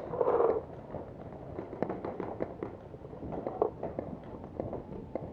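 Paintball markers firing across the field: irregular sharp pops, single and in quick strings, with the loudest pop about three and a half seconds in. A louder, duller burst of noise comes right at the start.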